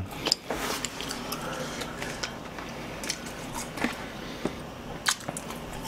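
Eating sounds: chopsticks picking food from a cardboard takeout chicken box, heard as scattered light clicks and taps.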